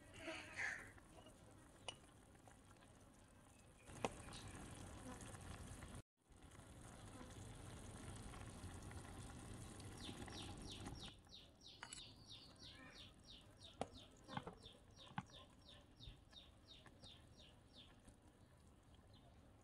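Faint simmering and sizzling of a curry in a small wok, with a few light clinks of a metal spoon on the pan as pieces are added. Partway through comes a fast run of high ticks, about five a second, for a few seconds.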